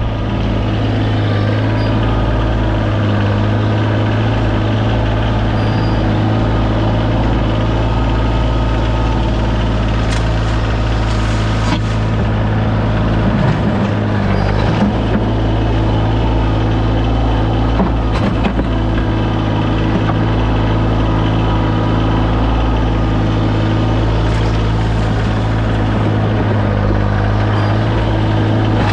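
Kioti CX2510 compact tractor's diesel engine running at a steady speed, with a few short knocks and clanks in the middle.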